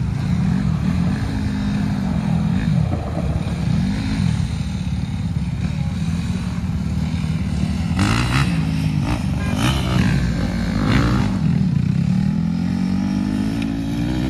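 Road traffic passing: cars and an SUV drive by one after another, their engines and tyres swelling and fading as each goes past. There are a few sharp knocks about eight to eleven seconds in.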